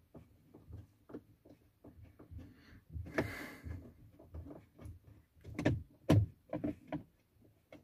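Small clicks and knocks of a screwdriver and hands working the screws of a car's plastic trim cover. There is a short scrape about three seconds in and two louder knocks a little before six seconds in.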